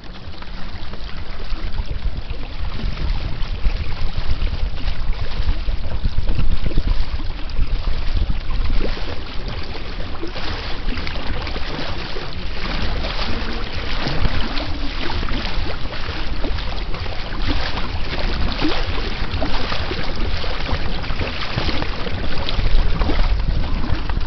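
Lake water rushing and splashing along the hull of a Weta trimaran under sail, with wind buffeting the microphone. The splashing grows busier from about ten seconds in.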